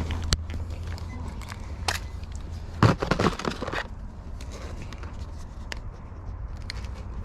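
Small items being handled, with scattered light clicks and a louder rustling, crackling clatter about three seconds in, over a steady low hum.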